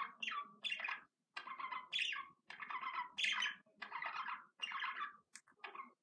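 Budgerigar chatter: short, rapid warbling phrases, about two a second, with brief pauses between them.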